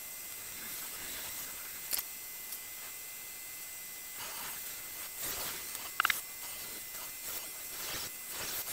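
Filament change on a paused 3D printer: soft rustles and a few sharp clicks of hands working filament at the extruder, one click about two seconds in and a pair about six seconds in, over a quiet steady hiss.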